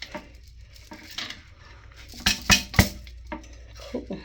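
Hard toilet-tank parts clicking and knocking as a fitting is pushed back into place, with three sharp knocks in quick succession a little past two seconds in.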